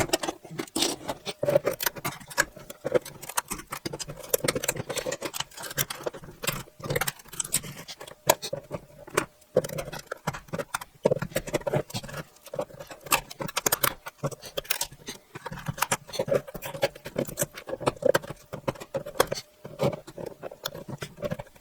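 3D-printed tough PLA support material being peeled and snapped off the part by hand: a long run of irregular small cracks, clicks and crackles of breaking plastic.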